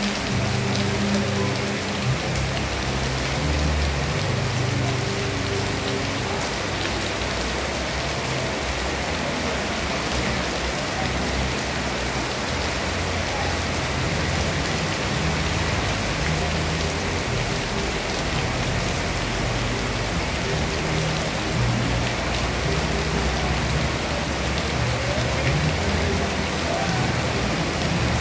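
Heavy rain pouring down steadily onto a street and running floodwater, with a low rumble of vehicles driving through the water.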